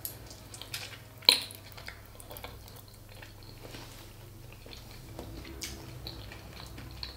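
Close-miked eating sounds: mouth noises and fingers picking at smoked fish, with scattered small clicks and one sharp click about a second in.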